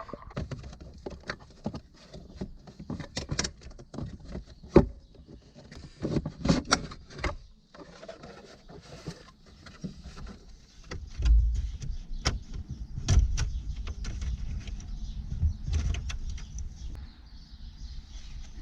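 Scattered clicks, knocks and rattles of hand tools and car interior trim as bolts are undone and centre console parts are worked loose, with a low rumble of handling partway through.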